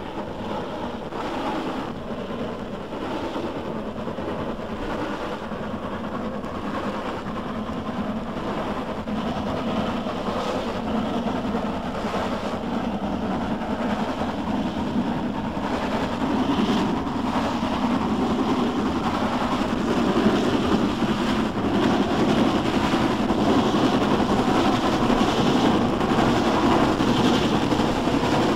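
LMS 'Royal Scot' class three-cylinder 4-6-0 steam locomotive working a passenger train up a 1 in 100 climb, its exhaust beats steady and growing louder as it approaches.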